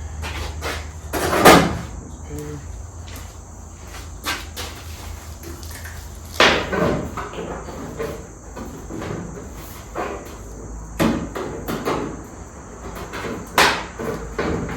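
Scattered knocks and clanks of hand tools and sheet metal being handled while a quarter panel is clamped up with vise grips, a few louder clanks several seconds apart, over a steady low hum.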